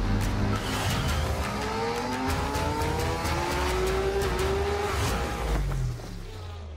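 Show outro sting: a racing motorcycle engine sound effect climbing in pitch as it accelerates, over music with a heavy bass beat. It drops away about six seconds in.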